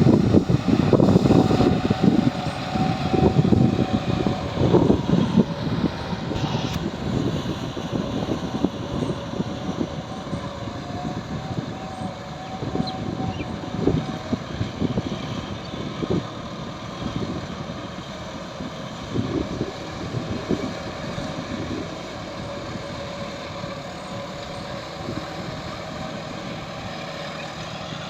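John Deere tractor engine running while ploughing mud, with uneven surges in the first several seconds, then settling to a steadier, quieter run.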